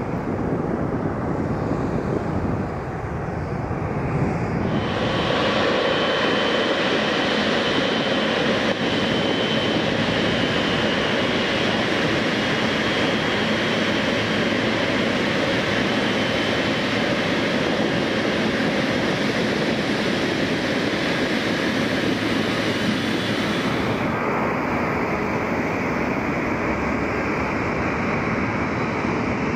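Jet airliner engines running at taxi power, a steady rumble and hiss. From about five seconds in to about twenty-four seconds in, the sound is louder and closer, with a high engine whine.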